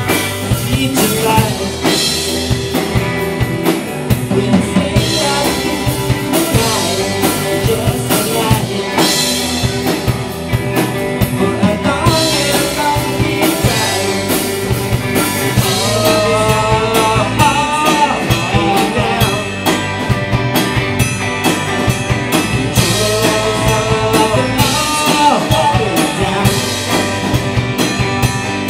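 Rock band playing live: drum kit and electric guitar, loud and continuous, with a pitch-wavering melodic line coming in over the middle and again near the end.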